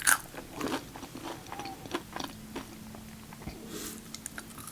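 A person chewing food close to the microphone: a string of short, soft crunches and mouth clicks.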